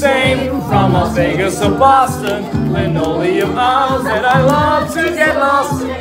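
A small group of young voices singing together, loud and continuous, with wavering held notes.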